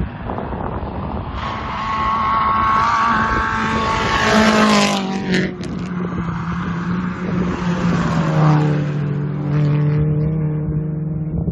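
Race car at full throttle on a gravel road, its engine note climbing and then dropping sharply in pitch as it passes, about five seconds in. The engine rises and falls once more near the nine-second mark, then settles to a steady drone as the car draws away.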